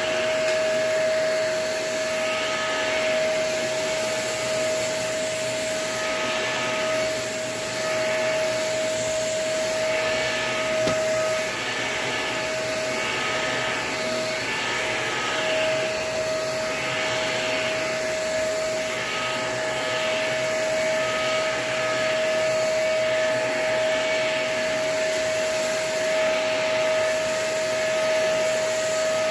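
Vacuum cleaner running with its filter badly clogged with dirt: a steady motor whine under a rushing hiss that swells and fades about every second and a half. The whine briefly breaks up about halfway through.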